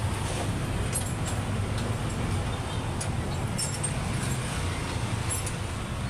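Steady low rumble of motor vehicles, with a few faint light clicks.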